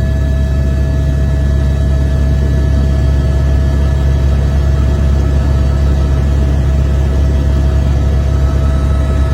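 Helicopter in flight: a loud, steady low drone of engine and rotor with a constant high whine over it.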